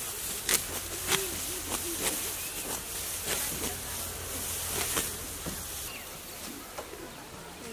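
Hand sickles cutting through stalks of ripe rice: irregular sharp, crisp snaps, several a few seconds apart, over the rustle of dry straw.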